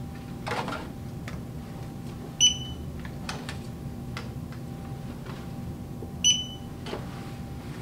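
Two short, high electronic beeps about four seconds apart from a put-to-light workstation, each marking a scan or confirmed put, with faint clicks and knocks of items being handled on the shelving.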